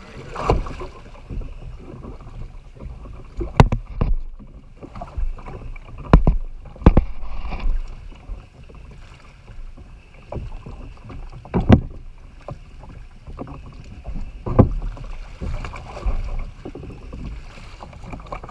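Irregular hard knocks and thumps, about six loud ones among many smaller ones: a plastic kayak bumping against the hull of a fiberglass fishing boat, and the thump of a large kingfish being dragged over the gunwale onto the boat's deck.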